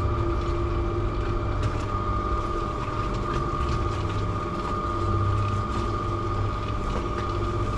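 Portable cement mixer running with a steady motor hum and drum rumble, with occasional light scrapes and clicks as sand is shovelled in.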